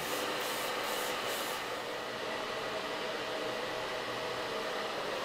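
A hand trigger spray bottle giving a few quick sprays of liquid, over a steady rushing noise like a blower or fan running.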